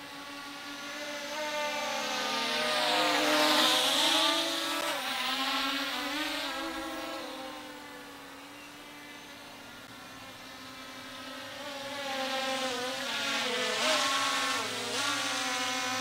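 Drone flying past twice: the buzzing whine of its propellers swells as it comes close, about four seconds in, and fades away. It swells again near the end, its pitch bending as it goes by.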